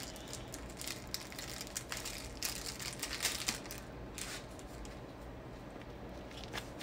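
Quiet room tone with a low hum and faint scattered clicks and rustles, a little busier a few seconds in.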